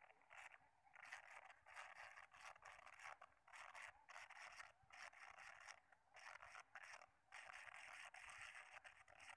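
Faint scraping whirr of a fishing reel being cranked to retrieve a lure, in short stop-start bursts with a longer steady run near the end.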